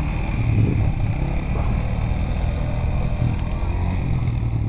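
ATV engines running steadily, a low, even engine hum.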